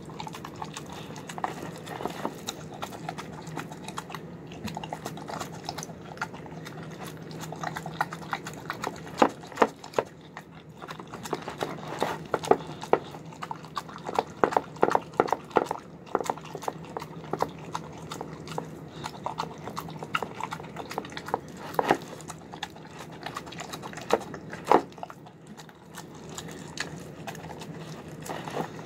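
Dog eating soft, wet food from a plastic bowl: irregular chewing and slurping with many sharp clicks and clacks of mouth and teeth in the bowl, coming thickest about halfway through.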